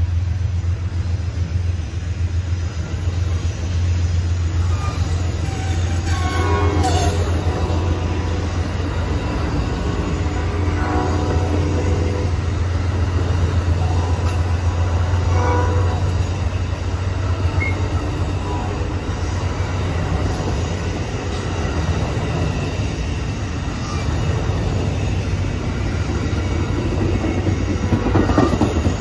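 Amtrak Superliner bilevel passenger cars rolling steadily past, their wheels rumbling and clattering on the rails, with a few short wheel squeals.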